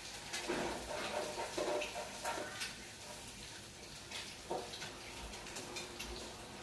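Metal spatula scraping and tapping in a frying pan on a gas stove, with a few sharp clicks from the pan. In the first few seconds there is a cluster of short voice-like sounds.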